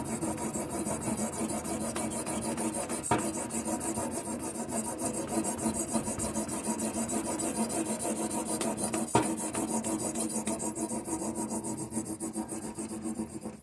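Knife edge being sharpened on the stone of a guided knife sharpener: a steady rasp of quick, even strokes, with a couple of sharper clicks, stopping suddenly at the end.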